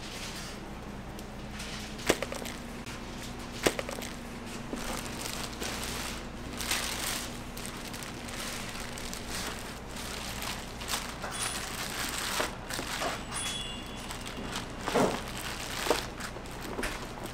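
Waffle-making work at a shop counter: a few sharp knocks and clicks, with stretches of rustling and crinkling like paper or wrapping being handled. A low steady hum stops about halfway through, and a couple of faint short high beeps follow.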